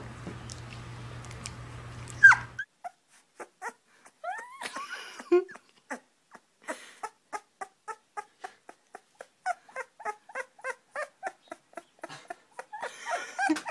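Young puppies whimpering. A husky puppy gives one brief falling cry, then a run of small puppy squeaks, clicks and short rising whimpers, two or three a second.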